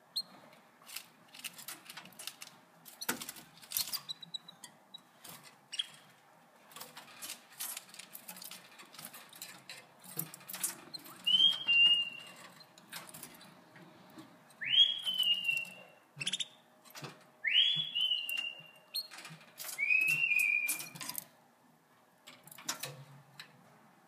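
Pet canaries in a wire cage: scattered sharp clicks and taps as the birds hop about the perch and wire. From about halfway through come about five short whistled calls, each sweeping up and then holding briefly.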